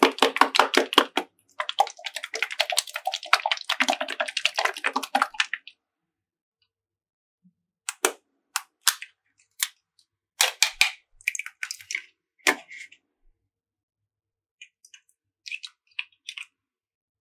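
Slime being squeezed and pressed by hand: a fast run of sticky clicks and pops for about five seconds, then scattered single pops and a few faint crackles.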